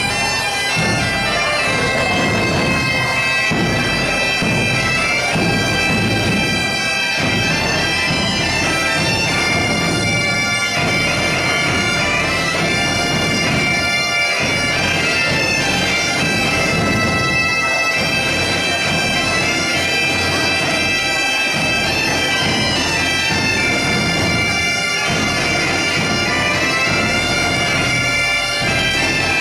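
A Portuguese bagpipe band (gaitas de foles) playing a lively folk tune: steady drones under the chanters' melody, with a snare-type drum and a large bass drum beating time.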